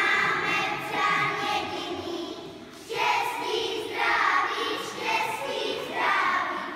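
A group of young children singing a song together, in short phrases of a second or two with brief breaks between them.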